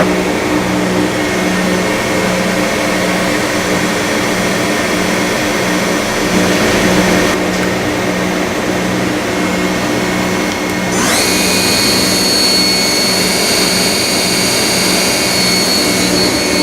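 Dugard Eagle 1000 CNC vertical machining centre running with a steady, slightly pulsing low hum. About 11 seconds in, a whine rises quickly to a higher pitch and holds there, the sound of the spindle speeding up to a higher rpm.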